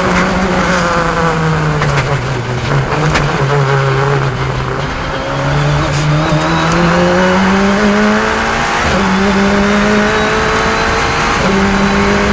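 Radical SR10 race car's turbocharged four-cylinder engine under load on track. Its note falls as the car slows, holds low for a few seconds, then climbs through the gears, with upshifts about nine and eleven and a half seconds in.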